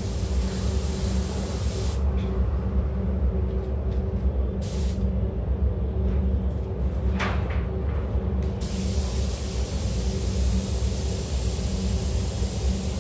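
Compressed air hissing from a hose-fed spray gun. It cuts off about two seconds in, gives a short burst near the middle, and comes back on for good after about eight and a half seconds, over the steady hum of the paint booth's ventilation.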